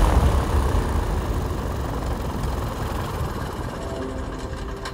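Piper Super Cub's engine idling: a low rumble that fades away steadily.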